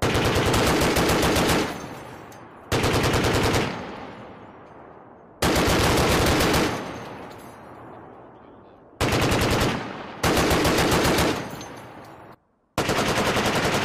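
Browning M2 .50 calibre heavy machine gun firing six short bursts of about a second each, each burst trailing off in echo before the next.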